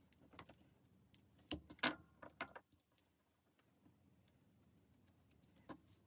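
Latch hook tool working a strand of yarn through rug canvas: a few light metallic clicks and rustles, with a quick cluster of sharper clicks a couple of seconds in and one more click near the end.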